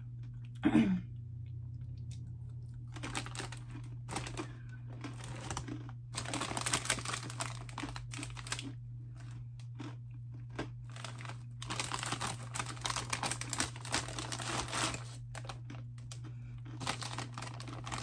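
Crunchy Cheetos Pretzels being chewed and their foil snack bag crinkling, in several bursts a few seconds long. About a second in there is a brief, loud, falling vocal sound, and a steady low hum runs underneath.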